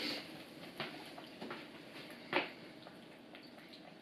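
A cat licking at a lickable cat treat: a few faint, wet smacking clicks, the loudest about two and a half seconds in.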